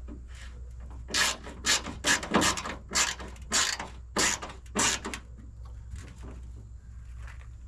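A hand ratchet driving a T30 Torx screw into the truck's tailgate, worked back and forth in about eight short rasping strokes a little over half a second apart, then stopping. The screw is one the owner thinks might be stripping its threads.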